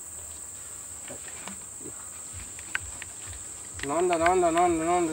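A steady high insect drone with a few faint clicks. About four seconds in, a loud, wavering, bleat-like call starts and carries on: a baby Asian elephant calf calling.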